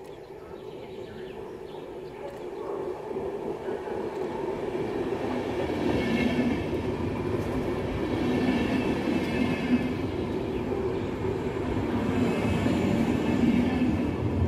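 VR InterCity double-deck passenger train approaching and passing along the platform, a rumble of wheels on rails that grows steadily louder over the first six seconds, then holds as the coaches go by close up.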